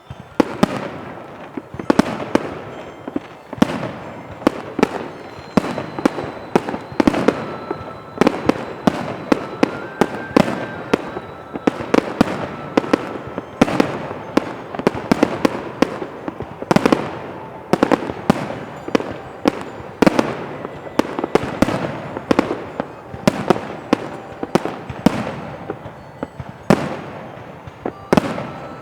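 Fireworks display: a continuous barrage of aerial shell bursts, several sharp bangs a second over a steady rumble of overlapping explosions.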